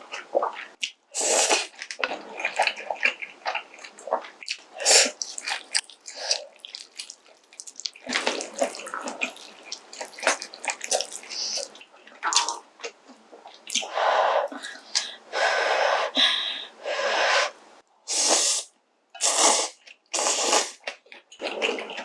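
Close-miked eating of pork kimchi stew with ramen noodles: wet, clicky chewing with several loud slurps, most of them bunched near the end.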